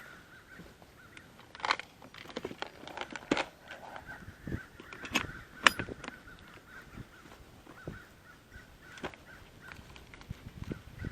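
Crows cawing over and over in alarm, a string of short harsh calls at irregular intervals, with a single sharp knock about halfway through.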